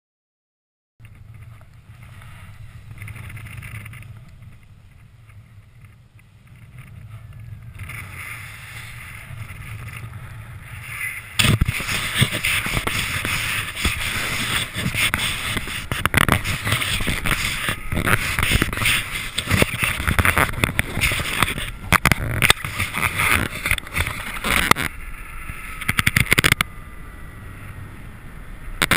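Wind rushing over a paraglider pilot's camera microphone in flight. It starts low and steady, then about ten seconds in becomes much louder, rough, gusty buffeting.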